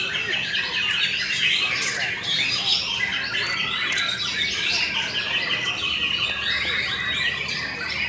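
Many caged white-rumped shamas (murai batu) singing at once in competition: a dense, continuous chorus of fast, overlapping chirps and trills.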